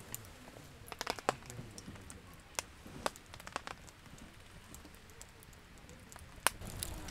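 Firewood burning in a campfire pit, crackling with irregular sharp pops; one pop about six and a half seconds in is the loudest.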